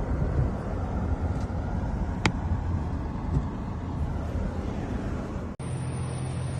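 Steady noise of road traffic, with one brief sharp sound about two seconds in. About five and a half seconds in it cuts off abruptly into a steady low hum.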